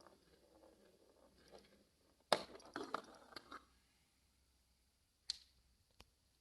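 Marbles on a plastic building-block marble run: a faint rolling rattle, then a sharp clack about two seconds in followed by about a second of clattering, and two more single clicks near the end.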